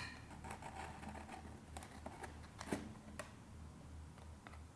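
Faint handling of a cardboard box: flaps and an inner card insert rubbing and scraping under the fingers, with a few light taps and clicks, the loudest about two and three-quarter seconds in.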